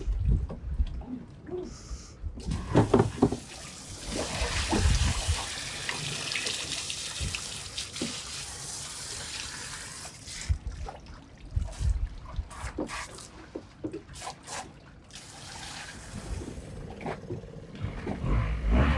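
Freshwater hose spraying into the open powerhead of a small outboard motor, water splashing off it, rinsing out sand the motor took in when the dinghy capsized in the surf. The steady hiss of the spray lasts about the first half; after it come scattered knocks, and a louder low rumble near the end.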